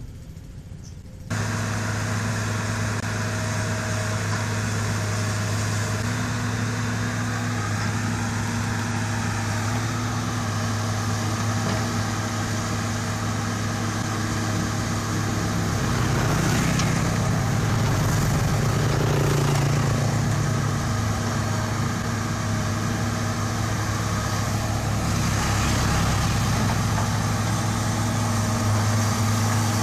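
Kobelco hydraulic excavator's diesel engine running steadily with a low hum. It cuts in sharply about a second in and grows louder for a few seconds past the middle as the machine works.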